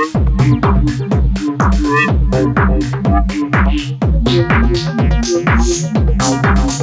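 Electronic dance music in a techno and trance style: a steady, regular kick drum under a stepping bass line, hi-hats and short melodic synth notes.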